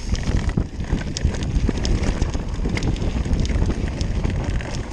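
Enduro mountain bike riding fast down a rough dirt trail: a steady rumble of tyres and wind on the microphone, with many quick clicks and knocks from the bike rattling over bumps.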